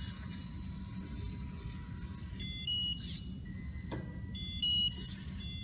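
Short runs of high electronic beeping notes that step in pitch, heard about three times, over a steady low rumble.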